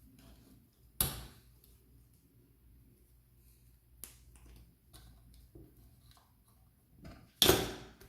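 Small objects being handled on a work surface: a sharp click about a second in, a light tick around four seconds, and a louder clatter lasting about half a second near the end.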